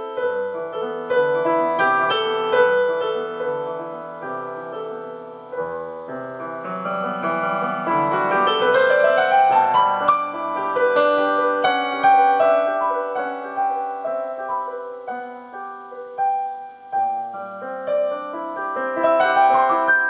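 Background instrumental music played on piano, with a rising run of notes about halfway through.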